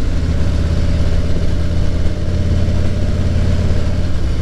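Motorcycle engine running steadily while riding, a low, even drone.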